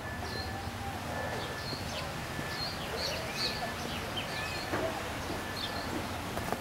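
Birds chirping: many short, high, hooked calls scattered through, with a short steady whistled note repeating every second or so over a constant low outdoor background.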